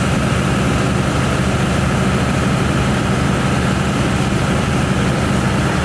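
Fire truck's heavy engine running steadily, a continuous low drone with a thin steady whine above it.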